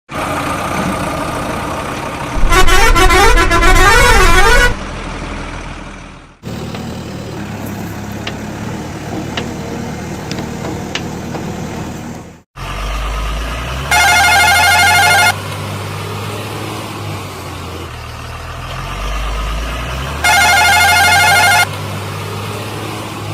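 Heavy vehicle engines running with a low steady drone, with truck horns sounding over them: a loud warbling horn from about two to five seconds in, then two steady horn blasts of about a second and a half each, one past the middle and one near the end. The engine sound breaks off abruptly twice.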